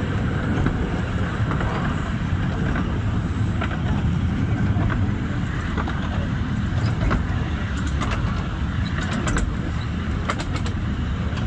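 Steady running rumble of a 15-inch-gauge miniature railway train on the move, heard from on board, with a few sharp ticks about eight to ten seconds in.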